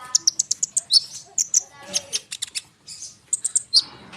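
A konin songbird singing a dense, rolling song of rapid, sharp, high chirps and trills, with a brief pause a little before the end.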